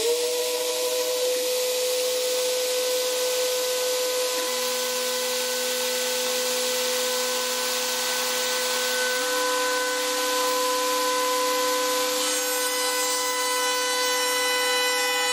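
6040 CNC router spindle comes up to speed at the start and runs with a steady high whine over a hiss as its end mill begins the roughing cut in a wooden blank. A lower hum underneath steps in pitch several times as the stepper-driven axes move.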